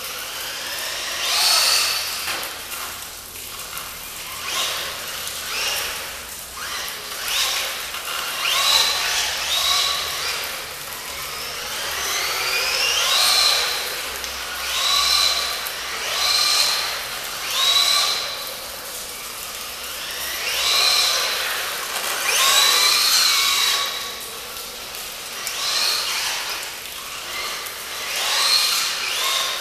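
Brushless motor of a WLtoys L212 Pro RC truck on a 2S lipo, whining up in pitch with each burst of throttle, again and again every second or two.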